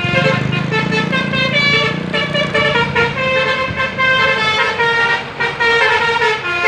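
Indonesian bus 'telolet' horn, a multi-tone air horn, playing a quick tune of stepped notes, with the bus engine running low underneath for the first couple of seconds.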